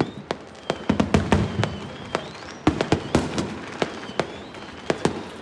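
Fireworks and firecrackers going off: an irregular scatter of sharp bangs and pops, thickest about a second in and again around the three-second mark, with a faint high wavering whistle behind them.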